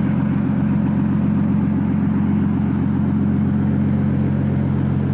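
Nissan RB25DET turbocharged straight-six with a straight-pipe exhaust running at steady, unchanging revs, a low even drone with no revving or turbo flutter.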